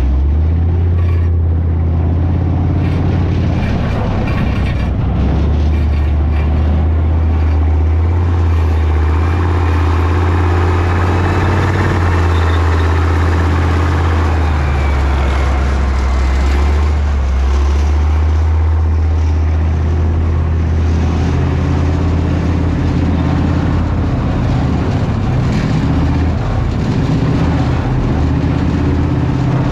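Leopard 1A5 tank driving over sandy ground, its MTU V10 multi-fuel diesel engine running with a steady deep drone. The rumble grows louder and rougher around the middle, with a faint rising whine.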